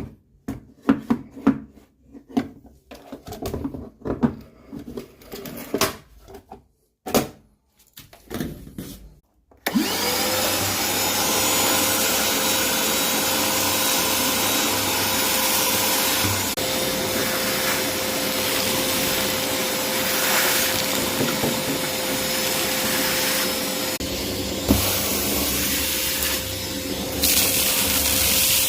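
Ryobi vacuum cleaner switched on about ten seconds in, after some clicking and handling knocks. Its motor spins up to a steady whine over a loud, even rush of air and keeps running, with small shifts in loudness near the end.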